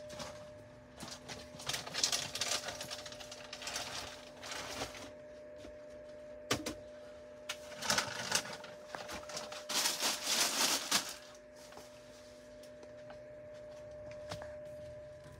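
Plastic pet-food packets rustling and crackling in several bursts as they are handled on shop shelves, with scattered clicks, over a steady hum.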